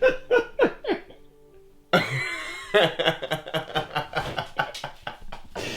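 Laughter, then a brief quiet gap, then background music cuts in about two seconds in with a quick steady beat.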